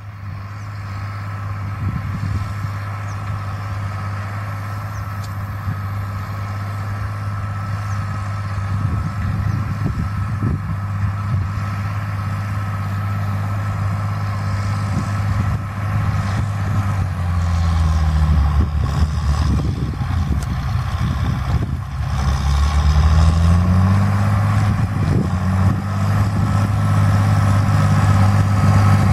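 John Deere 8320 tractor's six-cylinder diesel engine working under load while pulling a disc harrow through stubble, growing louder as it approaches, with a thin steady whine above the engine note. The engine pitch shifts a couple of times in the second half.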